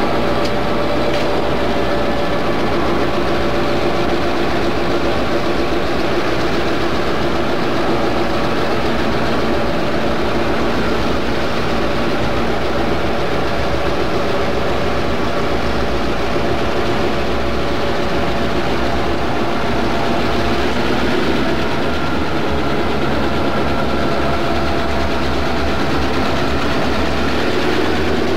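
Diesel-electric locomotive engines running steadily close by, a dense, unbroken engine sound with a faint steady hum in it.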